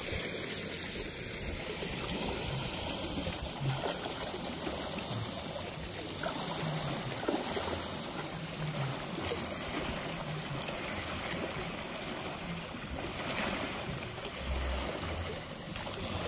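Steady rush of river water washing over a sloping concrete weir apron, with splashing around a man wading in the shallows as he hauls in a cast net.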